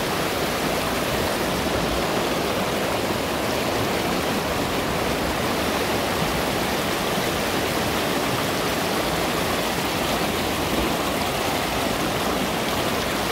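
Shallow mountain river running over stones and cobbles in a riffle, a steady sound of flowing water.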